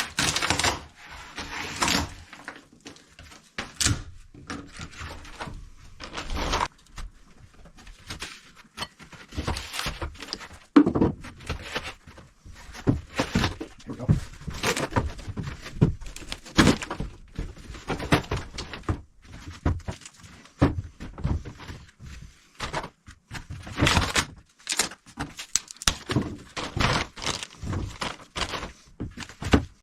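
Hand demolition of an old galley counter: irregular knocks, thunks and scraping as layers of Formica laminate and sealant are pried and scraped off the wood.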